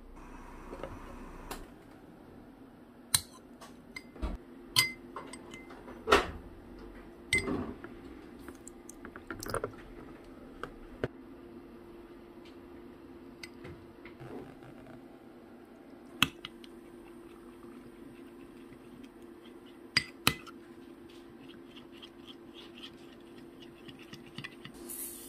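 Metal spoon clinking and scraping against a ceramic bowl as a thick gochujang sauce is scooped and stirred: scattered sharp taps, several of them loud, over a low steady hum.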